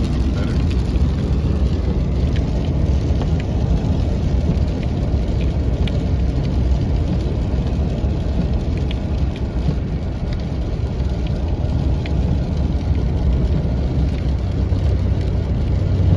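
Steady low road and tyre rumble inside the cabin of a car driving in the rain, with scattered faint ticks of rain on the glass.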